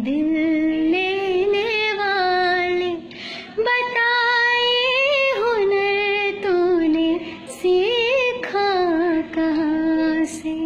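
A woman singing a Hindi song in long, wavering held notes that slide between pitches, with a short break about three seconds in.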